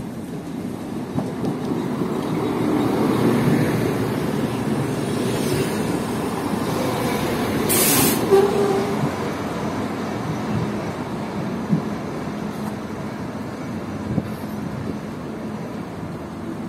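Regional diesel multiple unit running in along the platform: engine and wheels on the rails grow louder as it comes close, with a brief sharp hiss as it passes about eight seconds in, then the sound eases off.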